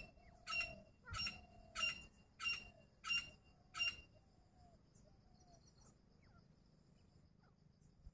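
Grey francolin calling: one loud, ringing call repeated about seven times, roughly one and a half calls a second, stopping about four seconds in. A few faint, short, softer notes follow.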